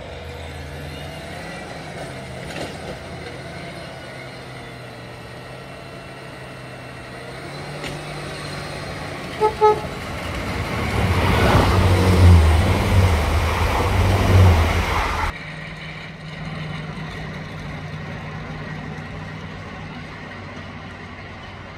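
Two coupled Class 158 diesel multiple units approach with a steady low engine hum, sound a short two-tone horn about nine seconds in, then pass close by in a loud low diesel rumble. The rumble cuts off abruptly about fifteen seconds in, leaving a quieter steady low hum.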